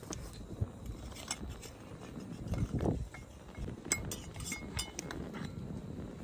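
Scattered light clinks and taps of small hard objects being handled, over a faint low background.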